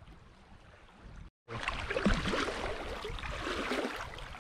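Lake water splashing and sloshing as hands scrub clothing in the shallows at a rock's edge, with many small splashes. It follows a faint lapping of small waves and a brief cut-out about a second in.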